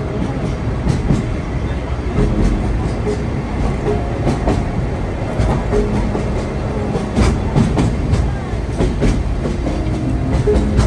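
Sagano Romantic Train passenger car rolling along the track: a steady rumble of wheels on rail with irregular clicks and knocks over the rail joints.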